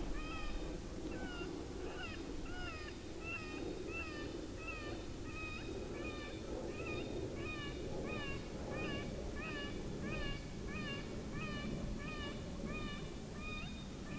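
Electronic predator caller playing a prey distress sound to lure coyotes: a long string of short, high, wavering squeals, about two a second.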